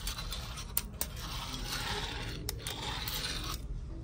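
Fingerboard wheels rolling and carving around a glossy sink basin as a long rolling hiss, broken by a couple of sharp clicks of the board's tail or trucks hitting the sink; the rolling stops about three and a half seconds in.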